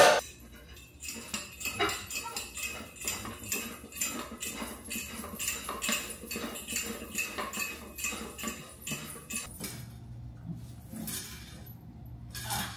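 Rapid clicking and clinking of small hard pieces, several a second, thinning out about ten seconds in.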